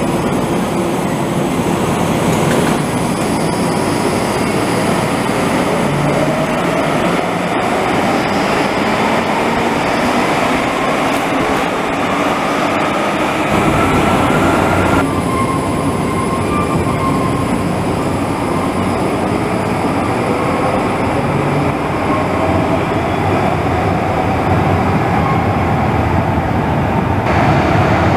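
Electric light-rail trams running through an underground station: steady wheel-on-rail running noise with the traction motors' whine rising in pitch as a tram gets under way, twice. The sound changes abruptly a few times between shots.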